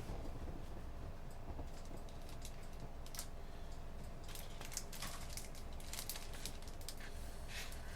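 Computer keyboard typing: scattered keystrokes that gather into quick runs about halfway through and again near the end, over a steady low hum.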